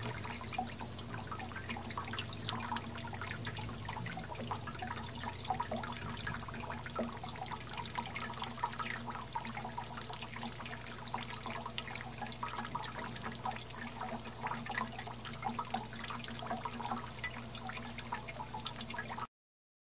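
Small tabletop fountain running: thin water jets falling into its basin in a continuous trickle and patter of drops, over a steady low hum. It cuts off abruptly near the end.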